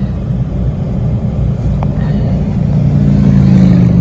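Engine and road noise of a vehicle driving slowly in traffic, heard from inside the cab. The low engine drone builds a little and rises in pitch about three seconds in as it picks up speed.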